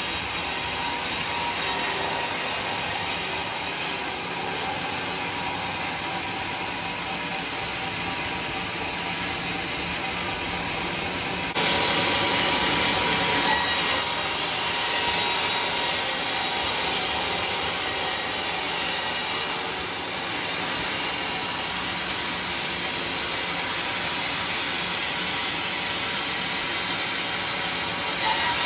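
Sawmill band saw blade cutting lengthwise through teak logs: a steady, bright rushing noise of the blade in the wood, stepping abruptly up and down in level a few times.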